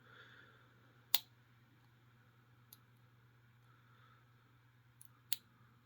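Pins of a small Master Lock 120EURD padlock being picked with a hook pick under tension: a sharp click about a second in, then a faint one and two more clicks near the end, the sound of pins setting at the shear line.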